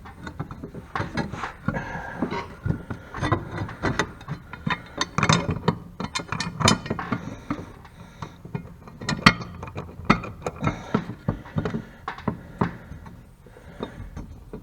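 Irregular metallic clicks, knocks and scrapes as a riding-mower blade is handled and fitted under the mower deck.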